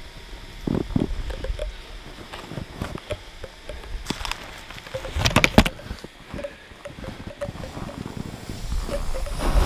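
Irregular crunching and scuffing of someone floundering through deep snow, with a loud cluster of crunches about five seconds in, over wind buffeting the microphone.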